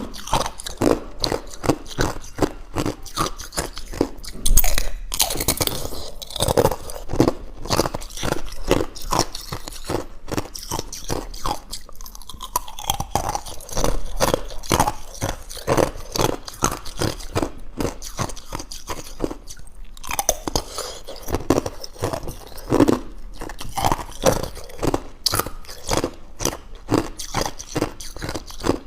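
Thin ice being bitten and chewed close to the microphone: rapid, crisp crunching, about two to three crunches a second, with a louder crunch about four and a half seconds in.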